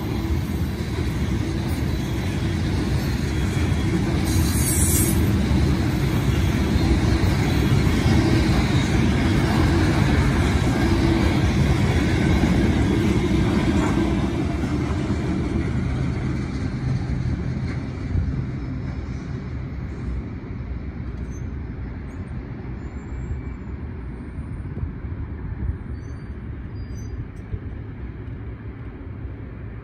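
CSX freight train of empty oil tank cars rolling past at close range, with a steady clatter of wheels on rail. The sound fades away from about fifteen seconds in as the last cars pass and the train moves off.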